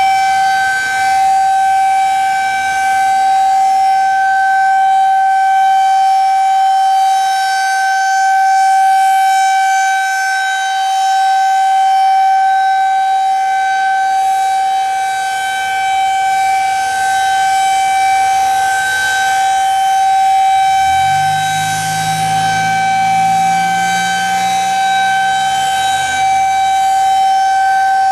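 Outdoor tornado warning siren sounding a steady single-pitch tone during a test, its loudness swelling and fading slightly. A low droning sound glides up and joins underneath about three-quarters of the way through.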